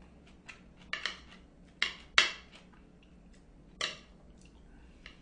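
Metal knife and fork clinking and scraping against a plate while cutting a pork cutlet: a series of separate sharp clinks, the loudest about two seconds in.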